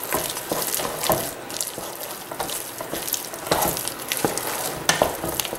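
Wooden spoon stirring thick, wet mashed potatoes in a stainless steel pot: irregular squelching, scraping strokes with a few sharper clicks.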